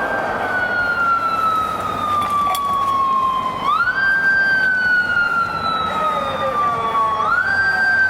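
Japanese police motorcycle siren wailing. Each cycle sweeps up quickly and then sinks slowly over about three and a half seconds, climbing again twice in this stretch, with steady traffic noise underneath.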